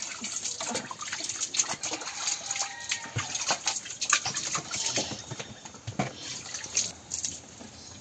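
A cow being milked by hand into a plastic bucket: quick, irregular squirts of milk splashing into the bucket, stopping near the end.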